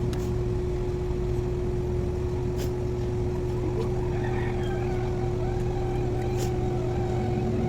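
Steady low motor hum with a constant tone held throughout, a few faint clicks, and faint distant voices about halfway through.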